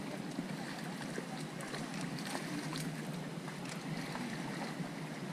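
Water lapping and splashing around paddleboards and an anchored sailboat's hull, with many small scattered splashes and light wind.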